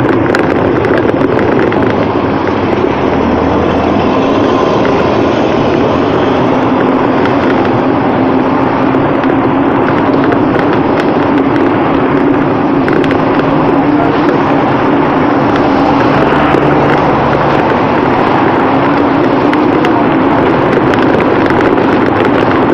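Loud, steady rush of noise while riding a bicycle beside a busy road: wind on the camera's microphone mixed with the running of passing cars and buses.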